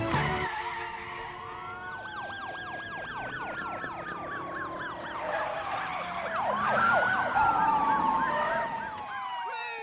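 Several police car sirens sounding together: slow rising-and-falling wails overlapped by a rapid yelp about four sweeps a second, swelling louder past the middle. A tail of music ends about half a second in.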